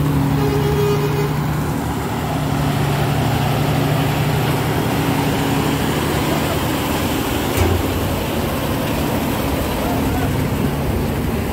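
Heavy diesel truck engine running steadily close by, over general roadway noise, with a single sharp click about seven and a half seconds in.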